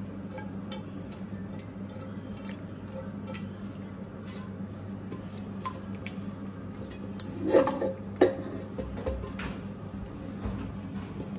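A silicone spatula scraping thick chicken masala out of a metal pan onto rice in a stainless steel pot: soft wet scrapes and small ticks, with two sharp metal knocks of the pans against each other a little after halfway. A steady low hum runs underneath.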